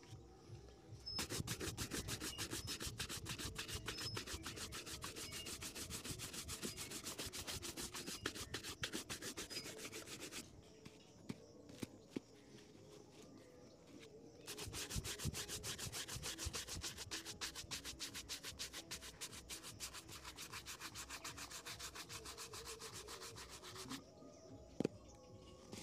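Stiff-bristled shoe brush scrubbed rapidly back and forth over a leather shoe, in two long spells of brushing with a pause of a few seconds between them. A single sharp knock near the end.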